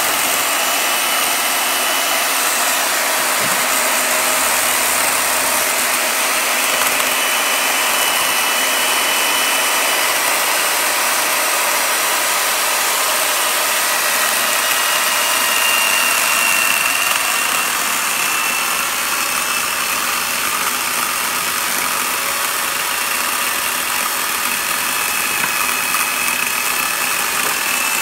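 Chainsaw running steadily as its chain cuts into the wood of a bonsai trunk, sending out chips, without a break.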